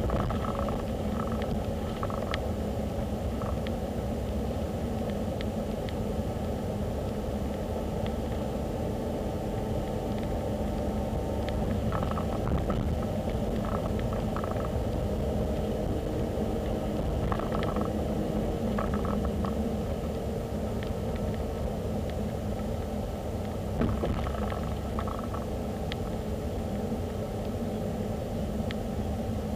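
Steady low rumble of a car on the road, engine and tyre noise heard from inside the cabin, with a few short runs of ticking.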